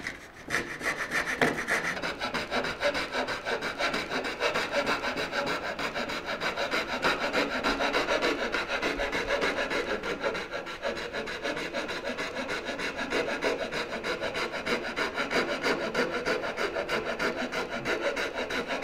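Coping saw cutting along the profile of a wood moulding with steady, quick back-and-forth strokes, coping the end for an inside-corner joint.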